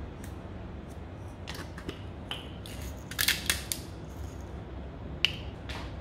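Hand pepper mill grinding black pepper, a short burst of gritty crunching and clicking about three seconds in, with a few lighter clicks and taps of containers before and after over a steady low hum.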